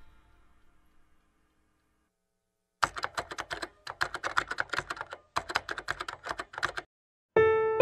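Keyboard typing sound effect: rapid key clicks in three runs, starting about three seconds in, timed to a caption being typed out. The tail of a music track fades out at the start, and piano music comes in near the end.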